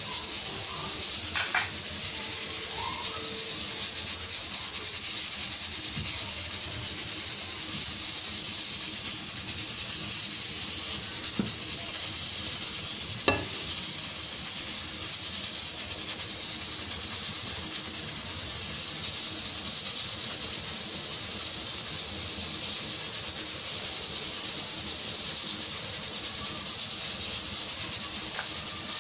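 Steady, high steam hiss from a pressure cooker softening beef shank, alongside a pot of water boiling with cabbage and sweet corn. A few faint knocks come in the first half.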